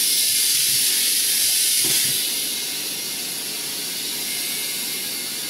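Compressed air hissing as it is fed through an air chuck into a UTV sand paddle tire whose beads have not yet sealed on the wheel, so the air leaks out past the beads. The hiss is steady and drops somewhat about two seconds in.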